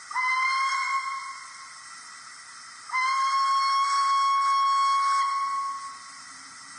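Model steam locomotive's DCC sound decoder sounding its steam whistle through the loco's small speaker: a short blast, then a longer one about three seconds in, each lifting slightly in pitch as it starts, over a steady faint hiss.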